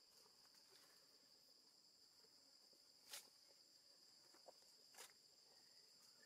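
Near silence with a faint, steady high-pitched insect drone, and two faint clicks about three and five seconds in.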